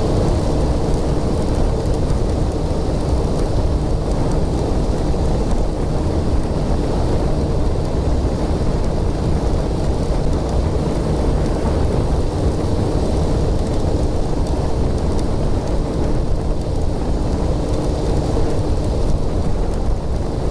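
Wind buffeting a helmet-mounted microphone at riding speed, with the 2001 Kawasaki ZX-6R's inline-four engine running steadily underneath at an even cruise.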